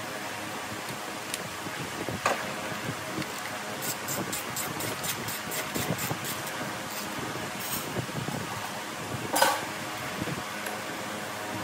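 Steady hum with a click, then a run of quick regular metallic ticks, about four a second, a knock and a louder clank near the end: hand-tool work during an engine starter replacement.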